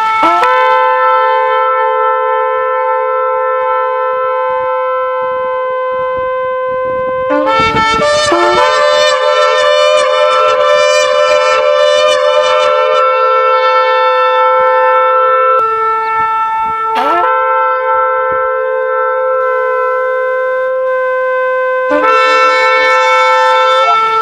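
Shofar (ram's horn) blowing long held notes, each opening with a quick upward slide in pitch. From about 7 seconds in, a second horn sounds alongside at a different pitch for several seconds.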